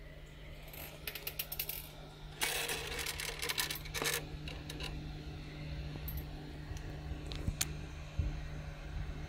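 Handling noise from close-up work around a pair of FPV goggles: scattered small clicks, then a dense run of clicking and rattling about two to four seconds in and a few more clicks later, over a steady low hum.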